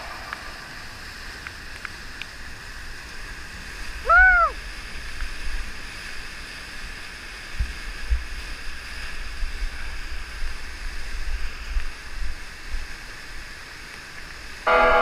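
Rushing whitewater of a river rapid in high water, a steady roar of churning water. About four seconds in, a short call rises and falls in pitch over it.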